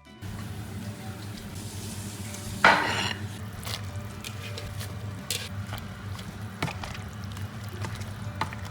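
Kitchen cooking sounds: stirring and utensils knocking against a pot. There is a louder clatter about three seconds in, over a steady low hum.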